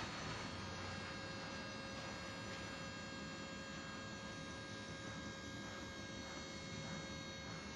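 Steady electrical hum and whine with several thin, steady high tones from a Sysmex XP-100 hematology analyzer powering up. A mid-pitched tone joins just after the start.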